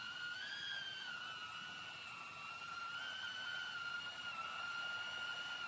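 Small 3-inch quadcopter with EMAX ECO II 2004 brushless motors hovering, its propellers giving a steady whine. The pitch wavers slightly as the flight controller holds it in surface position-hold mode, rising briefly about half a second in.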